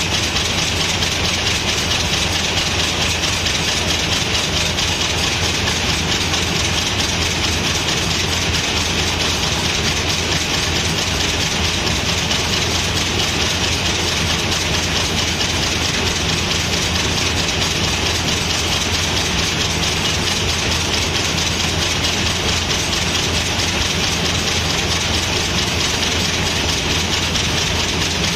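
Screw-making machines running steadily, a continuous fast metallic clatter over a low motor hum.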